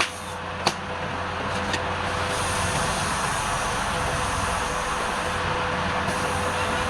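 Wood lathe running steadily with a low hum and a constant tone. There are two sharp clicks, one under a second in and one nearly two seconds in.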